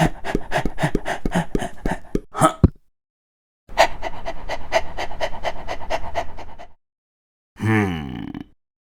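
Cartoon dog panting quickly, about five pants a second, in two bouts of about three seconds with a second's pause between them.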